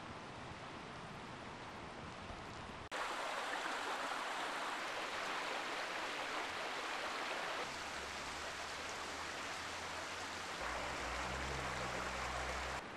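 Mountain river water rushing steadily over stones, cutting in abruptly about three seconds in after a quieter stretch of soft crackling from a wood fire. A deeper rumble of the water joins in during the second half.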